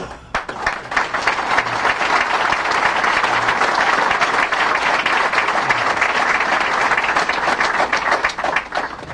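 Audience applauding: the clapping swells up within the first second, holds steady, and dies away near the end.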